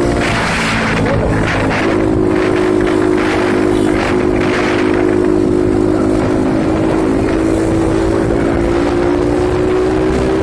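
Bajaj Pulsar 200NS single-cylinder engine running at a steady cruising speed, heard from the saddle with wind rushing over the microphone. The engine note steps up slightly about two seconds in, then holds.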